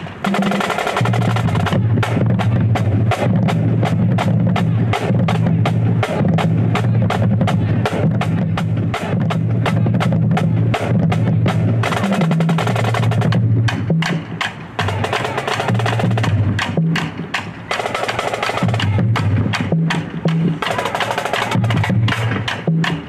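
Marching drumline of snare drums and bass drums playing a fast cadence with rolls, with a few short breaks in the second half.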